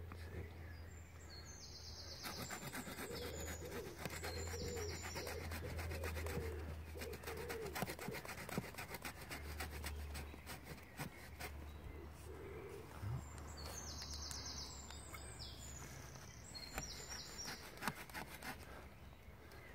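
Small hand saw blade from a multi-tool shovel kit sawing through a thin green tree branch in quick back-and-forth strokes, busiest in the first half. Birds sing in the background, once near the start and again about two-thirds of the way in.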